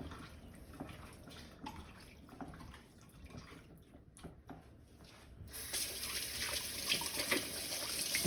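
Faint handling clicks, then about five and a half seconds in a kitchen tap starts running into the sink with a steady hiss.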